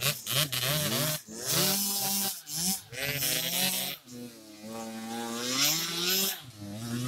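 Kawasaki KX85 two-stroke dirt bike engine revving hard up a muddy climb, its pitch rising and falling as the throttle is worked, with a long slow dip and climb in pitch through the middle.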